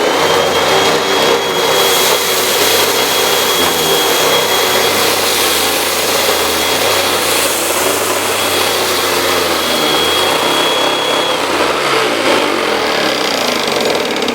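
Hoover WindTunnel Rewind upright vacuum cleaner running over spilled rice: a loud, steady rush of suction with a thin high whine above it that drops out about three-quarters of the way through.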